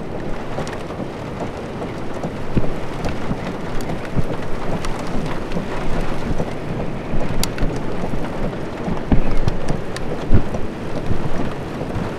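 Rain spattering steadily, with many sharp drop hits and a few louder low thumps in the second half.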